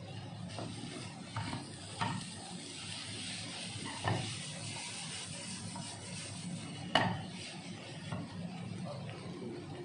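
Wooden spoon stirring and tossing chicken and sliced vegetables frying in a granite-coated pan: a steady sizzle with several knocks of the spoon against the pan, the loudest about seven seconds in.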